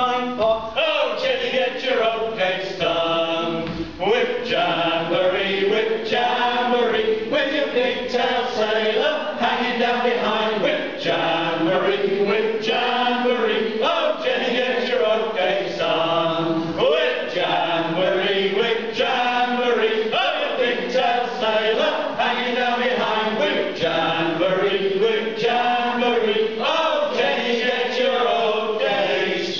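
A group of men's voices singing a sea shanty together in chorus, without a break.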